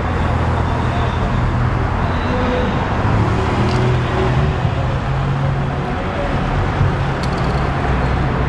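Steady street traffic noise: a constant rumble of motor vehicles with a low engine hum.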